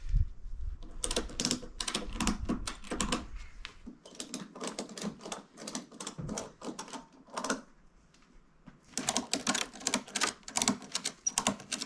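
Rapid, irregular clatter of light wooden clacks and knocks from boards and thin wooden stickers being laid down and knocked together while stacking freshly milled lumber, with a short pause about four seconds in and another about eight seconds in.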